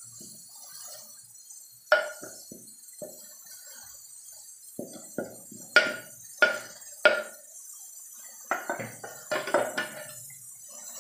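Wooden rolling pin knocking and scraping against a steel pot and a steel plate as thick cooked dough is scraped off it, each knock ringing the steel briefly. Sharp knocks come about two seconds in and three more around six to seven seconds, then a quicker run of softer knocks and scrapes.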